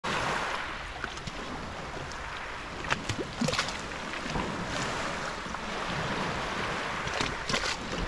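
Small waves of a calm sea lapping and splashing against a concrete breakwater and pebble shore: a steady wash of water with a few sharper splashes about three seconds in and again near the end, and wind on the microphone.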